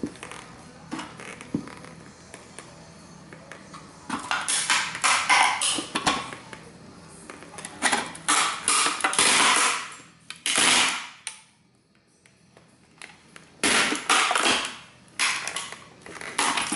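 Cowboy boot heels crushing model train houses: crackling and crunching in several bursts of a second or two each, with a quiet pause near the middle.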